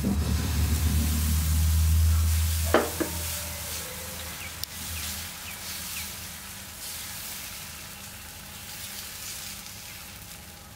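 Dosa batter sizzling on a hot flat tawa as it is ladled on and spread out in circles, the hiss slowly fading. A low rumble runs through the first three seconds, with a brief squeak just after it ends.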